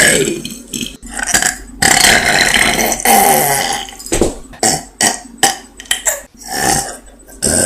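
A person burping over and over: one long, loud burp with a wavering pitch, then a quick run of short burps.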